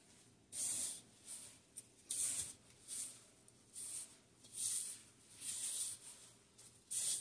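Hand in a disposable plastic glove squeezing and turning crumbly cornmeal dough in a plastic bowl: a short rustling crinkle with each squeeze, a little more than one a second.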